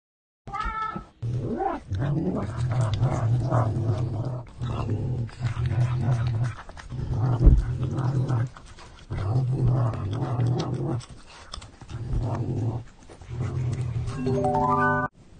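A cat growling over its food while it eats, in repeated rough low growls of about a second each with short breaks between them. Near the end a rising series of beeping tones plays as an added sound effect.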